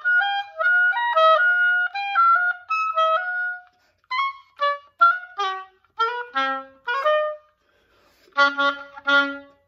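Solo oboe playing a fast passage: quick smooth runs of notes, then short detached notes, a brief pause, and a few louder low notes that close the piece.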